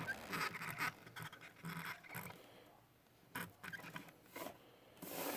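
Faint handling noises: soft, irregular scraping and light tapping as a small die-cast toy car is turned by hand.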